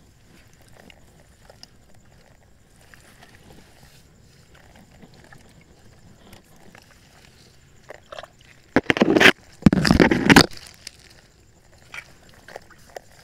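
Faint crackling and small clicks, then two loud sloshes of water right at the microphone, about nine and ten seconds in.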